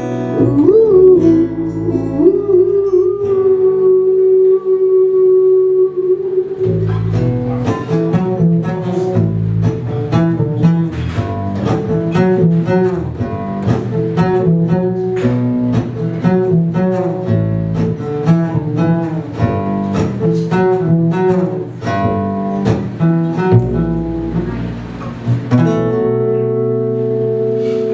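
Live acoustic music: a long held, wavering note over a low accompaniment, then fast fingerpicked guitar notes, ending on a sustained chord near the end.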